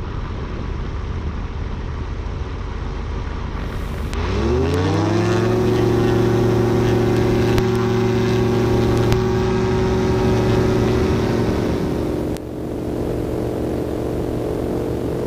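Aventura II amphibian's pusher engine and propeller going from low power to full takeoff power: about four seconds in, the pitch sweeps up and settles into a steady, loud drone for the takeoff run.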